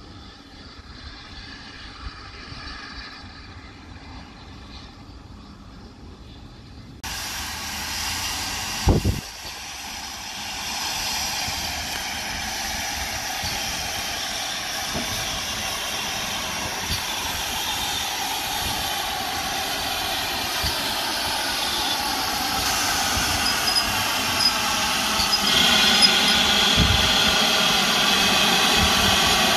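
Steam tank locomotive GWR 5239 'Goliath' running in alongside the platform, its sound growing louder as it comes near. It is faint at first, then much louder from about seven seconds in, with a single sharp knock a couple of seconds later.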